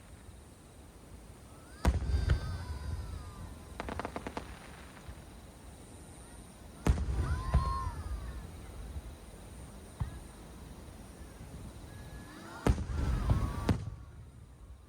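Aerial fireworks shells bursting: three loud booms about five seconds apart, each trailing off in crackle, with a smaller pop and a quick run of crackles between them.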